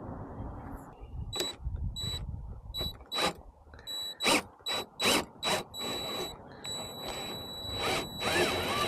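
Power drill driving the crank of a copper wire stripping machine: a high motor whine in about eight short trigger bursts, then running steadily near the end as the wire is fed through the cutter.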